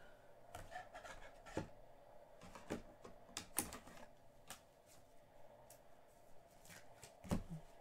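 Faint, irregular clicks and taps, about ten scattered through the seconds, as of small objects handled or keys pressed at a desk.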